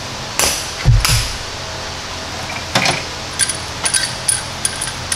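Metal tools being handled: a few knocks and a dull thud about a second in, then a run of light metallic clinks near the end, over a steady background hum.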